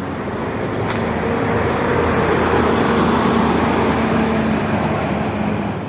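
A large road vehicle driving past close by, its engine drone and road noise swelling to a peak about three seconds in, then fading.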